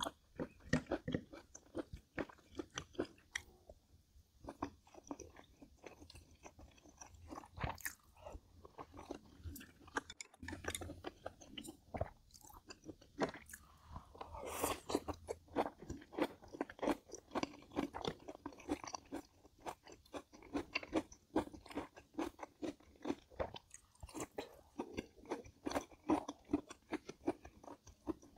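Close-up chewing of crunchy food, a dense, irregular run of crisp crunches and wet chewing. A louder stretch comes about halfway through.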